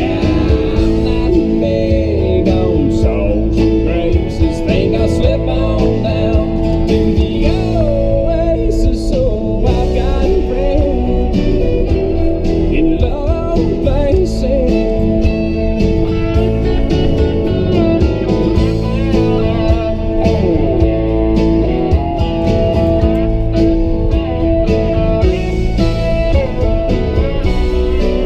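Country music instrumental break led by guitars, with no lyrics sung.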